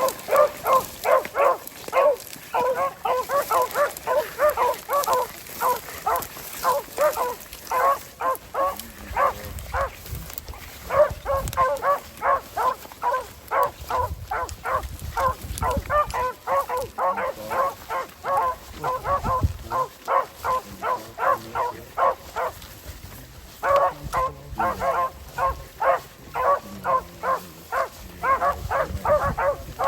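Beagle hounds giving tongue: a steady string of short barks, about two to four a second, with brief lulls, the cry beagles give while running a rabbit's scent line.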